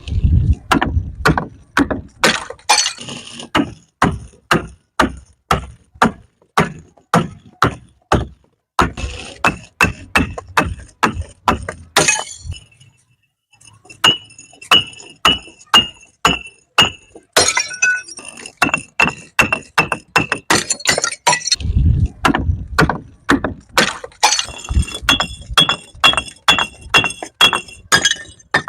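Glass bottles hitting stairs, breaking and clinking: a rapid series of sharp impacts, about two to three a second, some with ringing glass tones, broken by two short pauses.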